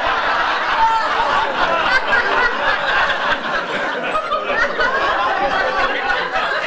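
Comedy club audience laughing loudly at a punchline, many voices overlapping at once.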